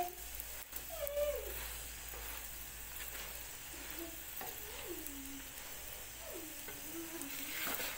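Msemen flatbread frying in a little oil in a non-stick pan, sizzling steadily while a spatula presses it. A few faint wavering, voice-like calls come and go in the background.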